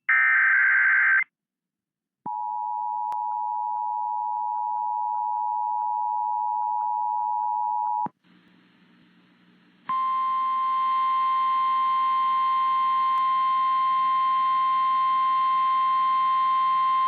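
Emergency Alert System tones on an FM radio broadcast heralding a tornado warning. The end of a SAME digital header burst comes first, then the two-tone EAS attention signal held for about six seconds. After a short gap a steady single-pitch NOAA Weather Radio alert tone sounds over faint hiss.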